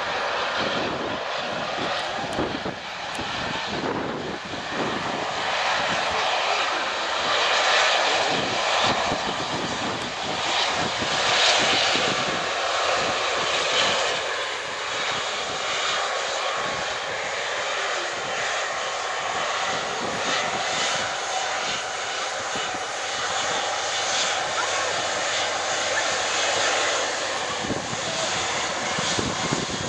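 Airbus A330-243 airliner's Rolls-Royce Trent 700 jet engines running as the jet rolls along the runway after landing: a steady, hissing jet rush that swells a little and eases again.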